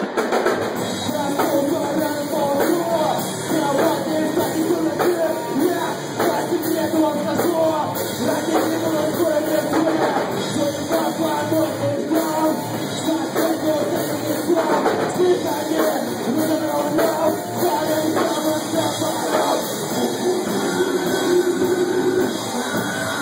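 Loud rock band playing live: drums, electric guitar and a vocalist singing into a microphone.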